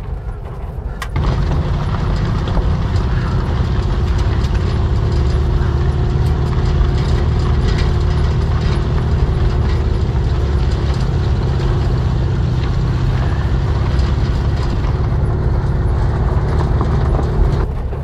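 Air-cooled flat-four engine of a 1950s VW bus running under way on a rough dirt trail, with a steady drone and the body rattling and ticking over the bumps. It grows louder about a second in.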